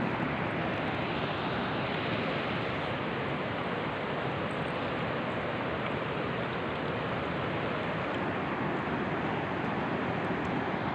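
Steady rushing of fast-flowing water, an even unbroken noise.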